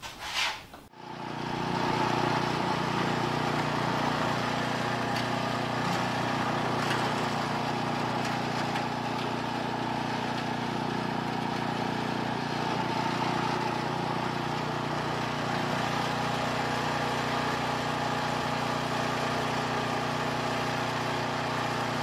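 John Deere 928E two-stage snowblower's engine running at a steady speed as the machine is test-driven after a new friction wheel was fitted. It comes in suddenly about a second in.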